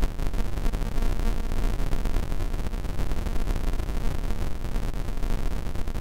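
Distant thunder rumbling continuously through a lightning storm: a steady low rumble with noise, with no single sharp clap standing out.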